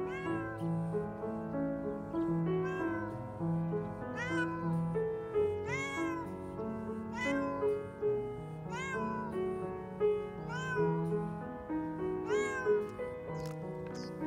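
A hungry cat meowing repeatedly: about eight drawn-out meows every couple of seconds, each rising and then falling in pitch. Soft piano music plays underneath.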